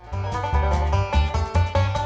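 Background music, louder from the very start, with a steady bass beat.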